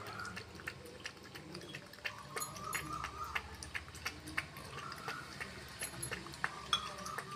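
A puppy lapping lassi from a steel bowl: a quick, uneven run of small wet tongue clicks, a few a second.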